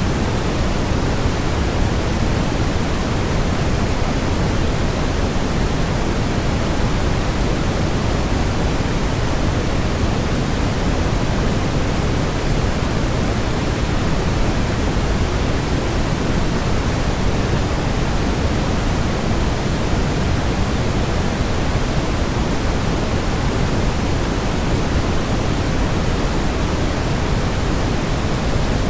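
Waterfall white noise: a steady, even rush of falling water, heaviest in the low end, with no change or separate events.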